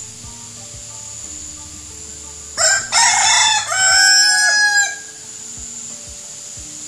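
Two roosters crowing together, their crows overlapping for about two seconds starting a little over two seconds in, the last one falling away at the end. Quiet background music plays underneath.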